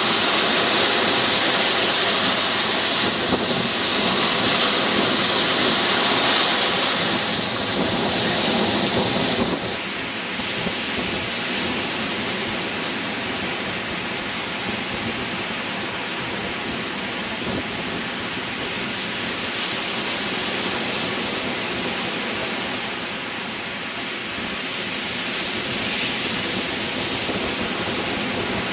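Ocean surf breaking and washing up the beach, a steady rushing noise that drops somewhat and turns softer about a third of the way through.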